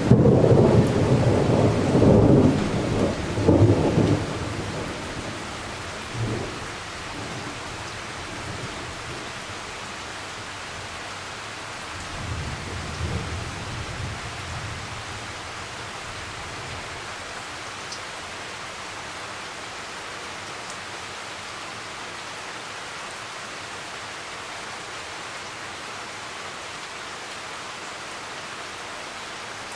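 Thunder rumbling loudly and dying away over the first few seconds, with a second, fainter roll of thunder about twelve seconds in. Steady rain hisses throughout.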